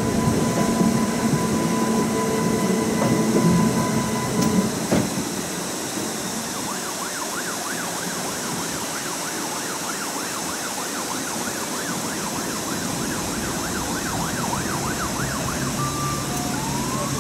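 A tram running along its track, with a steady electric whine for the first few seconds. Over the running noise a siren yelps rapidly up and down for several seconds in the middle, and a rising whine comes near the end.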